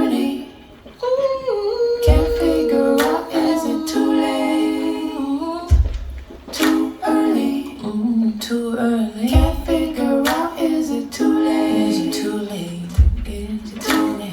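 A recorded song by a female singer, played over hi-fi loudspeakers in a room. Wordless sung and hummed vocal lines glide over a deep low beat that lands about every three and a half seconds.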